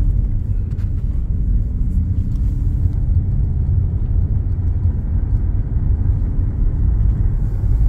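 Car driving along a road, a steady low rumble of road and engine noise heard from inside the cabin.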